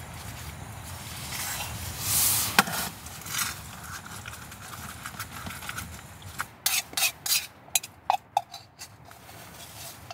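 Spoon stirring soup in a metal mug, clinking against the sides: one sharp clink a couple of seconds in, then a quick run of about eight clinks and scrapes near the end, a couple of them ringing briefly.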